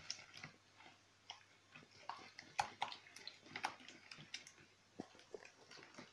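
A hand squeezing and mixing eggs, sugar and oil in a plastic bowl: faint, irregular wet squelches and soft clicks.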